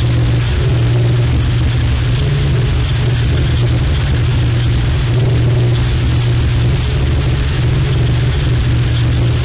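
A single kick drum sample crushed through about four million chained Soundgoodizer instances (FL Studio's one-knob Maximus-based compressor/maximizer), turned into a loud, steady, distorted drone. It has a heavy low hum under a dense hiss, and no separate kick hits stand out.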